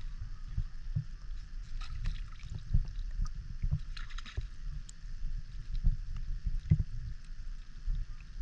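Seawater sloshing and lapping around people wading chest-deep while they handle a net cage, with small splashes about two and four seconds in over an irregular low rumble.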